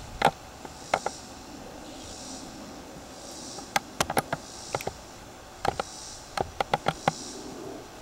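Clusters of sharp clicks and knocks from the camera and a stiff tripod being turned and handled. Under them is a faint, high cicada buzz that repeats about once a second.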